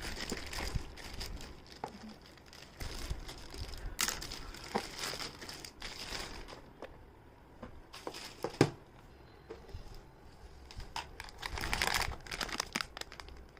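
Parcel packaging being crinkled and torn open by hand, in irregular rustles with scattered clicks. There is one sharp knock a little past halfway, and the rustling thickens near the end.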